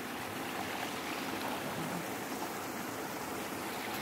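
Steady, even rushing noise with no break or change, outdoor ambience.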